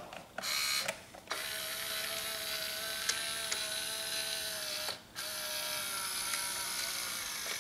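Small geared electric motor of a 1/14-scale Hobby Engine RC wheel loader whining steadily as it works, most likely lowering the raised bucket arm. It gives a short blip first, then two long runs with a brief stop about five seconds in.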